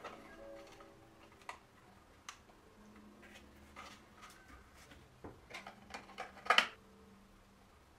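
3D-printed plastic parts of a toy PPSh-41 drum magazine being handled: scattered light clicks and taps of plastic on plastic, with a louder clatter about six and a half seconds in as the cover is fitted onto the drum housing.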